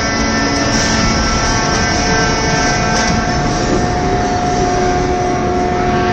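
Hydraulic scrap-metal baler running: a loud, steady machine drone with several whining tones from its pump and motor, one of which shifts in pitch about halfway through.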